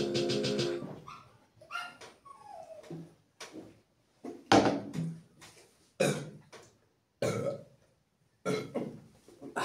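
A man burping again and again, short sudden belches with pauses between them, the loudest about four and a half seconds in, after gulping down fizzy cola.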